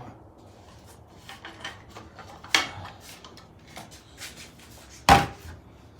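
Scattered clicks and knocks of metal parts being handled as the roller door's motor and drum are turned by hand to line up the drive cog, with a louder knock about two and a half seconds in and the sharpest about five seconds in.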